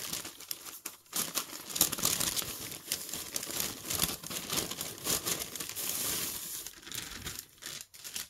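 Brown kraft paper bag being torn open and crumpled by hand: a dense run of crinkling and tearing paper that thins out near the end.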